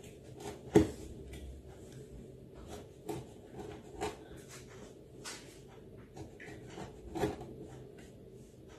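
Knife slicing through a rolled, layered baklava pastry log on a silicone mat: scattered soft crackles, scrapes and taps as the blade goes through and meets the mat, with the loudest knock about a second in and another near the end.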